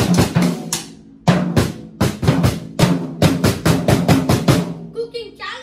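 Snare drum and toms beaten with drumsticks: a fast, irregular run of sharp hits with the toms ringing, broken by a short pause about a second in.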